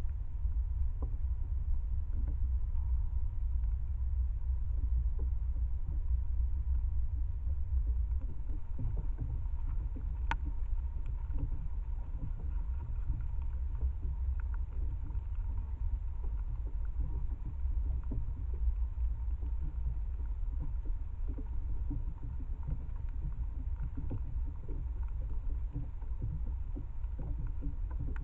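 A steady low rumble throughout, with a faint steady high tone over it and a few light clicks, one sharper click about ten seconds in.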